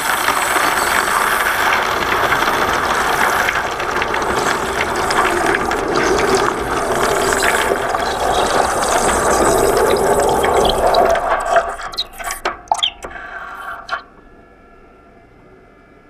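Molten silver pouring into a bucket of water: a loud, steady hissing and bubbling rush as the hot metal hits the water and boils it, turning into separate crackles and pops about twelve seconds in, then stopping abruptly about two seconds later. Heard from a camera under the water.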